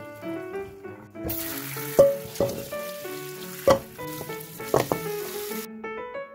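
Cold tap water running onto blanched pork back ribs in a stainless steel mesh colander, a steady hiss that starts about a second in and stops near the end. A few sharp knocks sound during it, and background music plays throughout.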